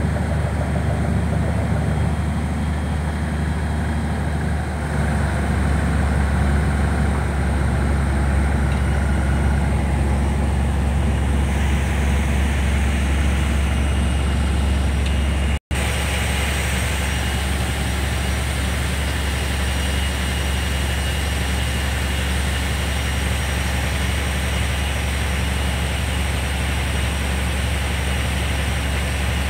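Large steel fishing boat's diesel engine running steadily at low speed while manoeuvring in to dock: a loud, low, even drone, briefly cut out for an instant about halfway.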